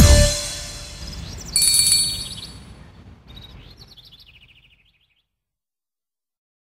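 The song's final chord dies away, then about a second and a half in birds chirp in short gliding calls that fade out within a few seconds.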